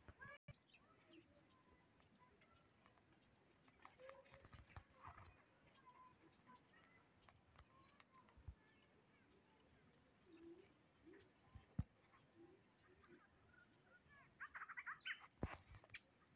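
A small bird chirping over and over, faint high chirps about twice a second with a few short trills in between, and a few light clicks.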